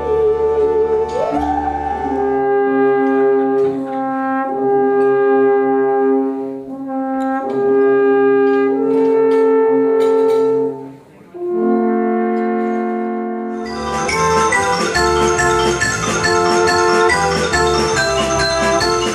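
A bowed musical saw holds a wavering note and glides upward. Then alphorns play long held notes in harmony, phrase by phrase with short breaks. About 14 seconds in, a wooden xylophone takes over with quick runs of short struck notes.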